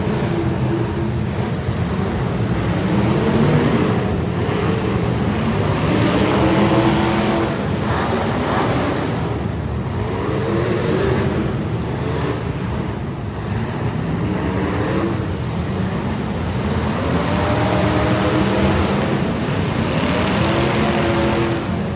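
Several demolition derby cars' engines running hard, their pitch rising and falling again and again as they rev.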